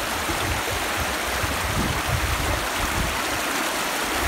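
Muddy pond overflow water rushing and splashing over and between riprap rocks in a spillway channel, a steady rushing from a heavy rain runoff.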